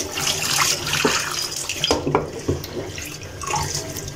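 Tap water running into a stainless steel kitchen sink while dishes are rinsed and scrubbed by hand, with a few knocks of dishes about two seconds in.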